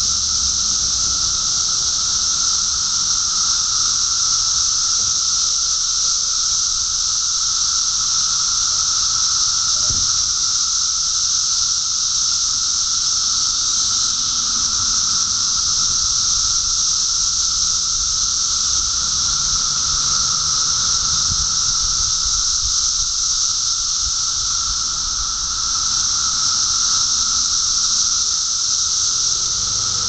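Dense chorus of 17-year periodical cicadas: a steady, unbroken high-pitched hiss with a droning tone held beneath it.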